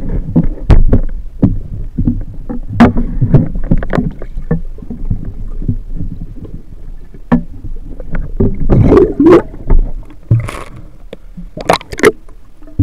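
Muffled underwater handling noise from a submerged camera: sharp knocks and clunks of a speargun and its shaft over a low rumble of moving water, with a longer rushing burst a little before the end.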